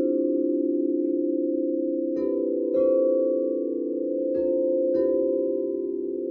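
Several singing bowls ringing together in a steady, layered hum. Four fresh strikes come in two close pairs, the first a couple of seconds in, each adding a brighter ring on top.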